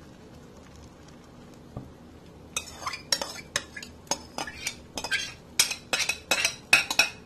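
Slotted metal spatula scraping and clinking against a frying pan while spreading an egg and potato omelette mixture. It is fairly quiet at first, then irregular sharp clinks and scrapes begin about two and a half seconds in and run on.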